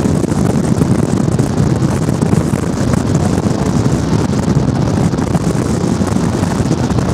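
Steady, unbroken rumble of wind noise on the microphone, heaviest in the low range.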